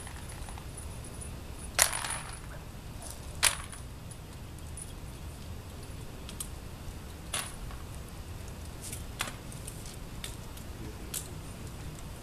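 Scattered sharp metallic clicks and clinks of cartridges and handguns being handled as shooters reload between strings of fire. The two loudest clacks come about two and three and a half seconds in, and fainter ones follow every second or so.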